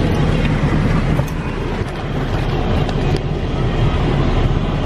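Steady road and engine noise inside a moving car's cabin: a continuous low rumble with a hiss above it.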